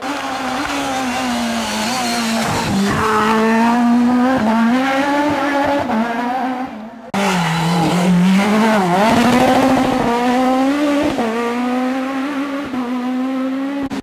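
Peugeot 306 Maxi rally car's high-revving four-cylinder engine at high revs, its pitch rising and falling through shifts and lifts. The sound breaks off abruptly about halfway and resumes at full volume, and about two seconds later a brief lift brings a burst of rapid crackling.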